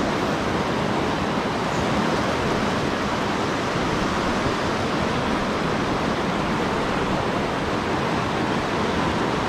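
Mountain river rushing through a whitewater rapid close by: a steady, unbroken rush of water.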